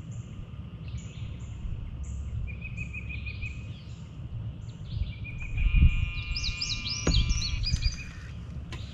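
Several wild birds singing and calling over a low rumble: repeated short high chirps, a trilling call, and a busier burst of song after about five and a half seconds. A couple of low thumps come about six and seven seconds in.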